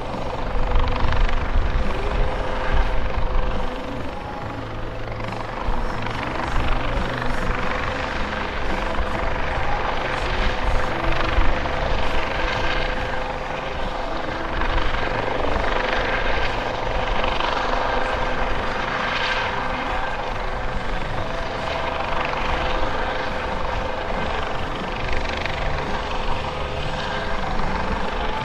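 US Coast Guard MH-65 Dolphin helicopter, a twin-turboshaft with a shrouded fenestron tail rotor, flying slowly in a near-hover: steady rotor and turbine noise with a constant humming tone. The low rotor rumble is heaviest in the first few seconds, then eases slightly.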